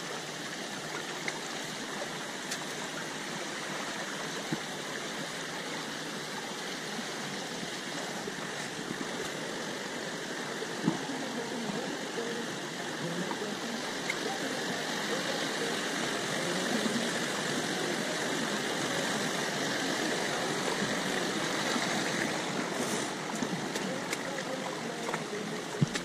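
Shallow mountain stream running over and between boulders: a steady rush of water, a little louder in the second half.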